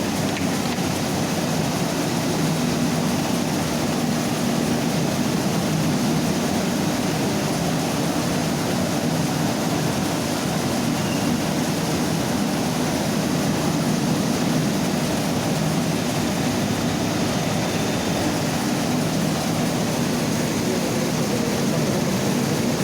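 Mini rice milling machine running steadily, a continuous mechanical drone with a rushing hiss over it.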